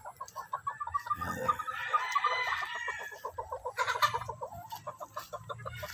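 Chickens clucking in a fast, steady run of short notes, with a rooster crowing over it about two seconds in.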